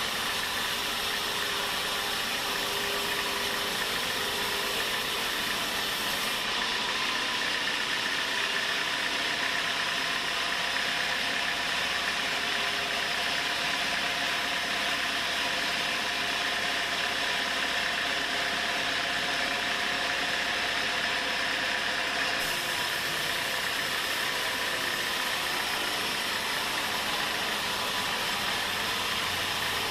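Sawmill machinery running steadily, a continuous mechanical drone with faint steady tones; the highest hiss thins out about six seconds in and comes back near twenty-two seconds.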